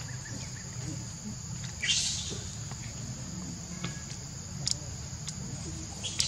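Steady high insect chorus of crickets or cicadas in the surrounding trees, with a short scratchy sound about two seconds in and a few faint clicks.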